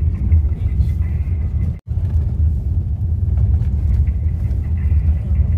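Steady low rumble of a moving road vehicle, the drone of engine and road noise while travelling. It cuts out for an instant about two seconds in.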